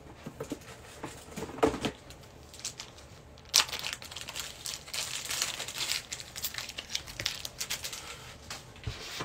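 A few light handling knocks, then about three and a half seconds in, plastic trading-card wrapping being torn and crinkled for several seconds.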